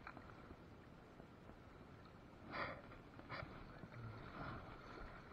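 Faint, steady flow of a shallow river. Two short, louder noises come about two and a half and three and a half seconds in.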